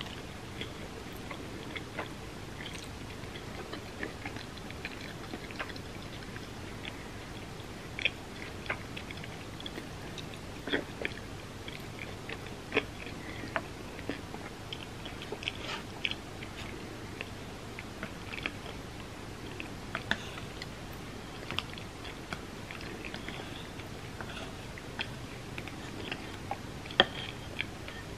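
A person chewing and biting food, with wet mouth clicks and smacks coming irregularly over a steady low hiss.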